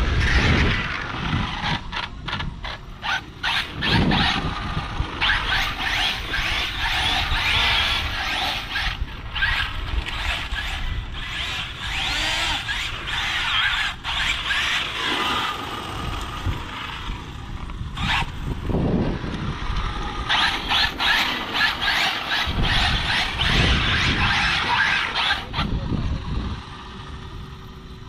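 Arrma Limitless RC speed-run car passing at high speed on asphalt, its brushless motor and drivetrain giving a loud, jet-like whistling whine that swells and fades over several runs. The owner puts the whistle down to the gears at the wheel end. It quietens near the end as the car slows.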